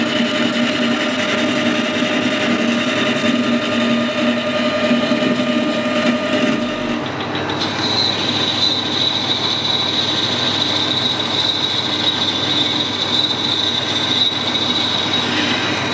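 Metal lathe running while a boring bar cuts the bore of an aluminium disc. About halfway through the sound changes abruptly, and a steady high-pitched squeal from the cut carries on to the end.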